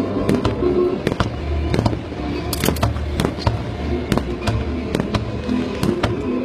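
Aerial fireworks going off in an irregular run of sharp bangs and cracks, one or two a second, with music playing underneath.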